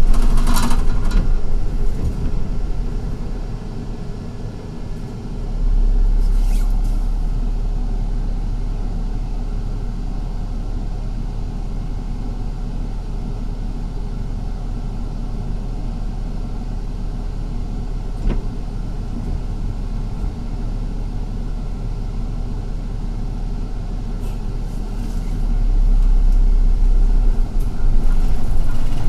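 Inside a city bus while riding: a steady rumble of engine and road noise with a low hum. The low rumble gets louder about five seconds in and again near the end.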